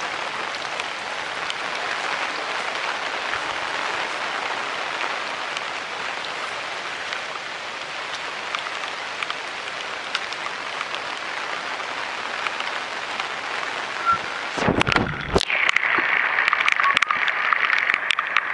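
Water running along an open split-bamboo (guadua) channel, a steady rushing splash. About fifteen seconds in come a few knocks, and the sound turns to a thinner, higher hiss with many small ticks.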